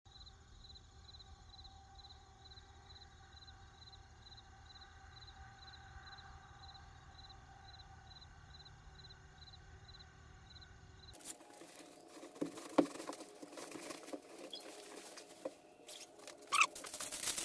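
Faint steady hum at first; from about eleven seconds in, irregular rustling and crinkling with sharp clicks from a disposable protective coverall and face mask being put on, louder near the end.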